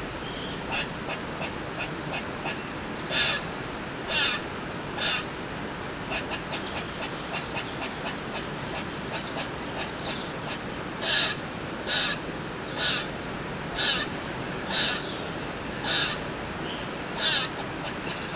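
Squirrel calling: a run of quick, faint, high chirping clicks, with louder harsh barking calls about once a second in two spells, three near the start and seven more through the second half.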